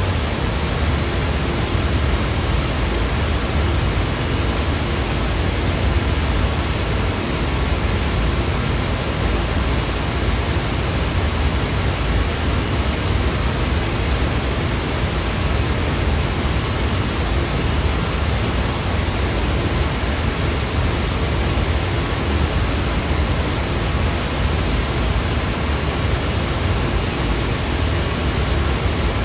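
Continuous synthetic white-noise sound effect: a steady, unchanging hiss spread across all pitches, a little heavier in the low end.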